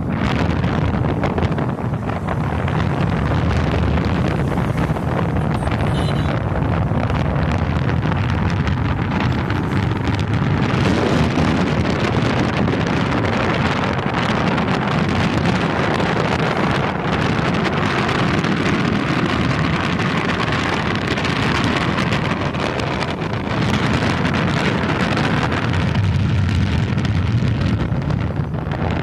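Wind rushing and buffeting over the microphone while riding a scooter at speed, mixed with the vehicle's road noise.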